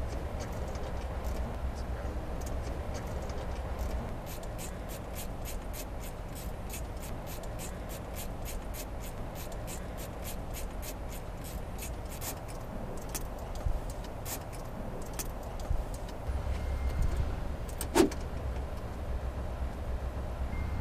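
Clicks and a snap from work under a pickup truck's dashboard. A run of rapid, even ticks comes about three or four a second over a low steady hum, with a few light knocks and one loud sharp snap near the end.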